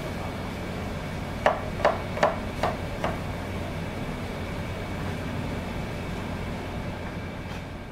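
A kitchen knife knocking against a wooden cutting board five times in quick succession, about two or three strokes a second, as food is chopped into cubes. A steady low hum lies underneath.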